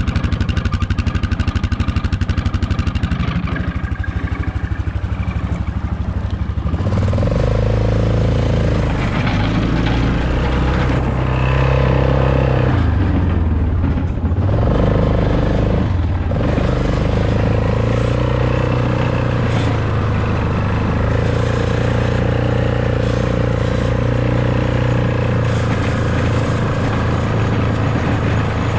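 ATV engine idling, then pulling away about seven seconds in and running steadily under throttle, its pitch changing a few times soon after as it gets moving.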